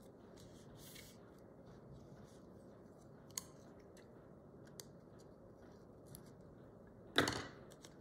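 Small scissors making a few light snips in sticker paper, trimming little cuts into it, with one sharper snip about three and a half seconds in. A louder brief noise comes near the end.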